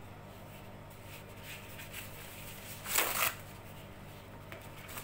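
Paper towel rustling and crinkling as it is pressed onto and peeled off a wet, freshly stained balsa wood gate to blot up the stain, with the loudest rustle about three seconds in. A faint steady hum sits underneath.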